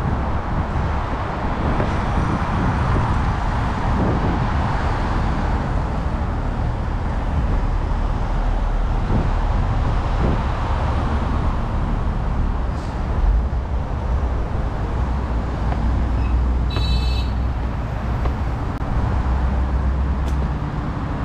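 Steady city street traffic, with a low engine rumble from passing vehicles. A short high-pitched beep sounds about 17 seconds in.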